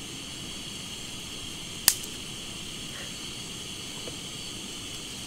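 Steady hiss of a Primus gas stove burner running under a cup of water, with one sharp crack about two seconds in.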